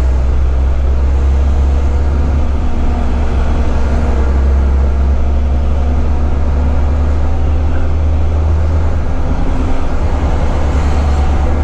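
Volvo FH12 truck's diesel engine running steadily under way, a deep, even drone heard from inside the cab.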